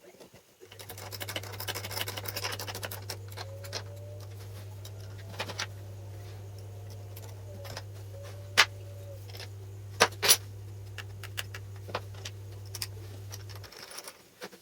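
A steady low electrical hum with scattered sharp clicks and taps and some scraping, the sound of small parts being handled and worked over a running motor or transformer. The hum starts just under a second in and stops abruptly near the end.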